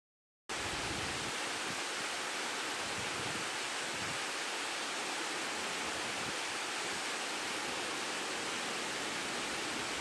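Small waterfall splashing down over rocks: a steady, even rush of water that cuts in abruptly about half a second in.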